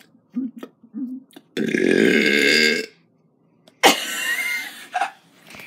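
A person burping loudly: one long burp lasting over a second, then about a second later a second loud, shorter vocal sound with a wavering pitch.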